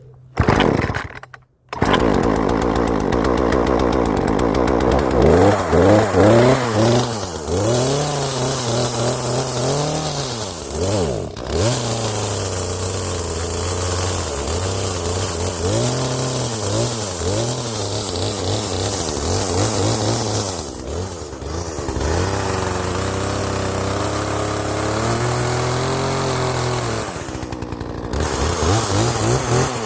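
Two-stroke chainsaw, freshly tuned up, starting at once and then running, its engine revved up and let back down again and again.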